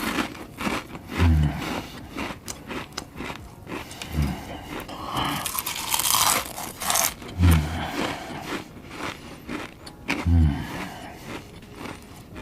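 Close-miked crunchy biting and chewing of food, many sharp crackling crunches in quick succession. A short low sound with a falling pitch recurs about every three seconds.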